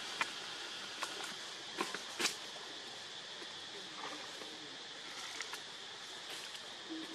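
Outdoor ambience: a steady high hiss with a scattered handful of light clicks and taps, the sharpest about two seconds in, as monkeys shift about on stone and dry leaves.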